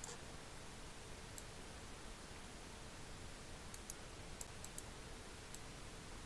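Computer mouse buttons clicking: a single click about a second and a half in, then six quick clicks over the next two seconds, over a faint steady hiss.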